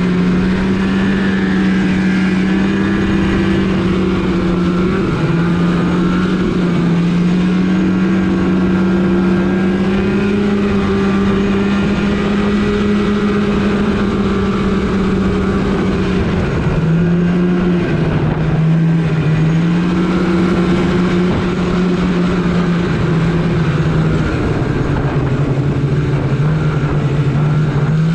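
Polaris RMK snowmobile engine running under way, its pitch rising and falling with the throttle. The engine note dips briefly twice and settles lower near the end.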